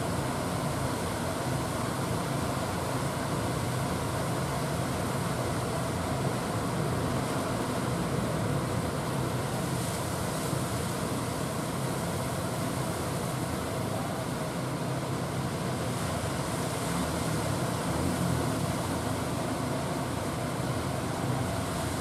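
Heavy surf breaking and washing ashore: a steady, unbroken noise heaviest in the low rumble.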